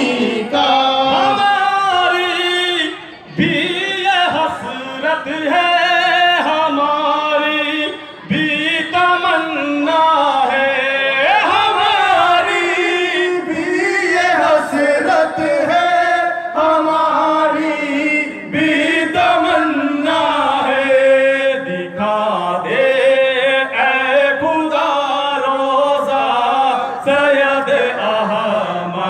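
Male voices singing an Urdu devotional song in praise of Sayyid Ahmad al-Rifa'i, in long, drawn-out melodic lines with short breaths between phrases.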